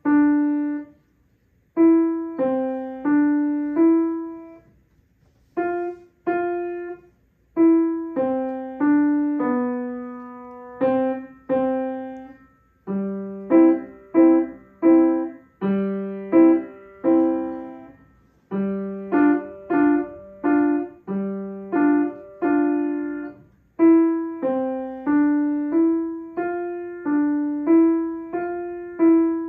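Grand piano played by hand: a simple melody of separate struck notes, now and then two or three together, in short phrases with brief pauses between them.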